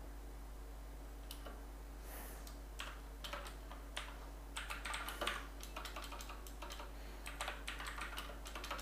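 Computer keyboard being typed on: a few scattered keystrokes at first, then a quicker run of keystrokes in the second half.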